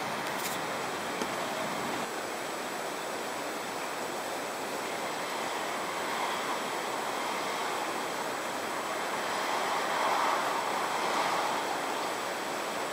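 Heavy rain falling steadily, an even hiss that grows louder for a moment about ten seconds in.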